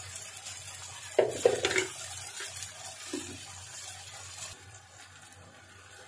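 Spice paste frying in oil in a steel kadai, a steady sizzle that gets quieter after about four and a half seconds. A few sharp clinks of utensil on metal come between one and two seconds in, and another, smaller one just after three seconds.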